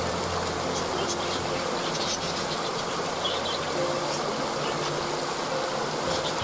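Waterfall rushing steadily, with small birds chirping briefly above it several times and a faint low hum underneath.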